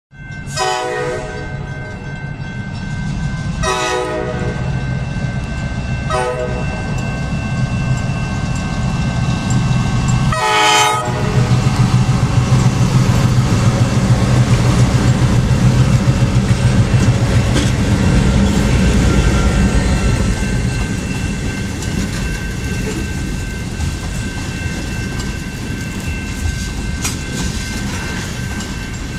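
Diesel freight locomotives sounding their horn in the grade-crossing pattern, long, long, short, long, as the train approaches. Then the engines' low rumble and the wheels' clatter as the locomotives pass over the crossing, with the crossing bell ringing throughout.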